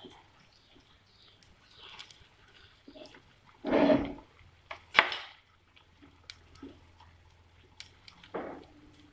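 Slotted plastic spatula scraping and knocking against a nonstick frying pan as a rolled omelette is shifted and turned. There is a short scrape a little before four seconds in, a sharp clack about a second later, and another brief scrape near the end.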